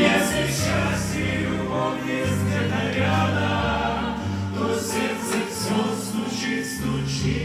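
Music: the outro of a Christian song, with choir-like singing over sustained bass notes that change about once a second.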